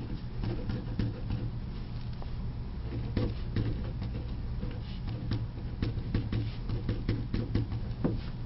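Ballpoint pen writing on paper: a run of small, irregular scratches and taps of the pen tip as letters are written, over a steady low hum.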